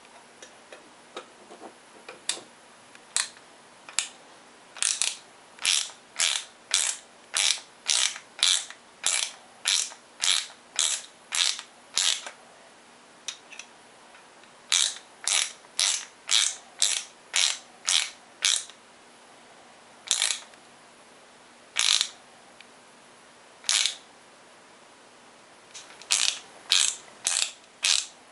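Flat-blade screwdriver tip scraping along the edge of a knife handle where the steel tang meets the wooden scales, in short, sharp strokes. The strokes come in runs of about two a second, with pauses and single strokes between the runs.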